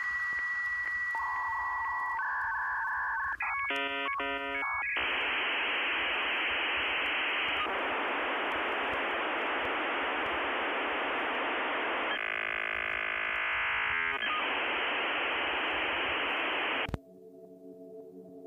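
Dial-up modem connection handshake: steady beeping tones, a second or so of chirping, warbling tones, then a long stretch of hissing static, all with the thin, cut-off sound of a phone line. The static stops abruptly near the end and soft synthesizer music takes over.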